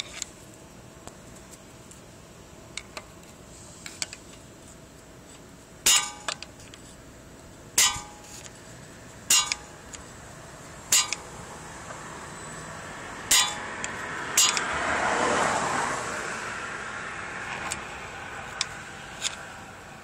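Sharp metallic clinks from a Kia K8's right rear wheel while driving over bumps and rough road, which the owner takes for the brake pads knocking against the caliper bracket. About six loud clinks come at irregular intervals, with fainter ones between. A swell of rushing noise rises and fades about three-quarters of the way through.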